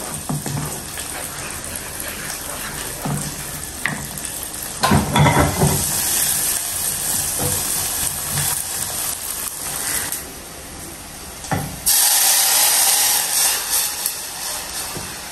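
Blended chili paste frying in a non-stick wok, a soft sizzle with a wooden spatula scraping and knocking against the pan as it is stirred, busiest about five seconds in. About twelve seconds in, a loud steady hiss of about two and a half seconds as liquid is poured from a steel cup into a small saucepan on the gas burner.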